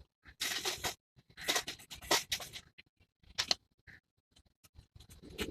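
Irregular scraping and rustling handling noises in short bursts, with a few sharp clicks.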